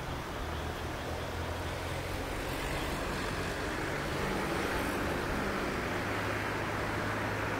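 Yoro Railway electric train approaching, its running noise a steady hum with a rail rumble that slowly grows louder.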